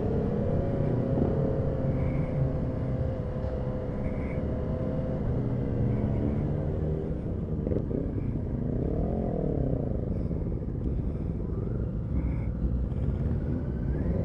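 Motorcycle engine running while riding in city traffic, holding a fairly steady note at first. About nine seconds in it revs up and then falls back.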